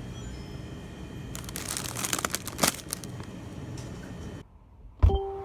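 Low steady rumble of a vehicle's engine running, with crinkling, rustling handling noise in the middle. Near the end the sound drops out briefly, then a loud thump is followed by a short steady tone.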